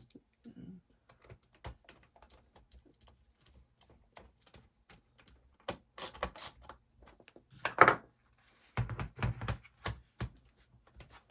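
The laptop's plastic back panel being handled and fitted: scattered clicks and taps, a louder knock about eight seconds in, then a quick run of clicks.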